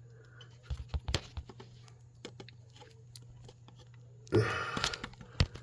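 Scattered light clicks and taps of small objects being handled, over a steady low hum. About four seconds in comes a louder, brief burst of rustling noise.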